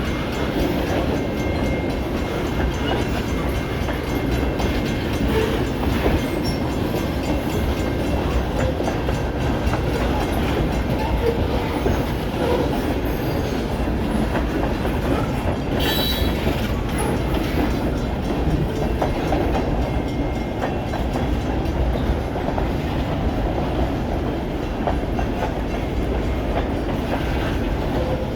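Freight train cars of a Pan Am Railways train rolling past, a steady rumble of wheels on rail with clicking from the rail joints. A brief high squeal about sixteen seconds in.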